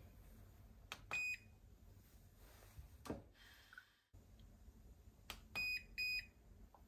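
A PhiPower hydrogen water generator bottle beeps as its button is pressed to start it. A faint click and one short high beep come about a second in. Another click and two short beeps follow near the end, and the water starts bubbling as the electrolysis begins.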